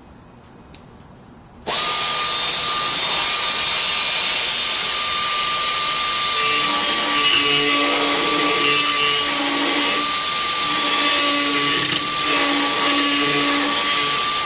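Dynabrade right-angle pneumatic die grinder starting up suddenly about two seconds in and running at speed with a steady high whine and air hiss. From about six seconds in its burr bites into a metal casting, adding a rougher grinding sound that comes and goes.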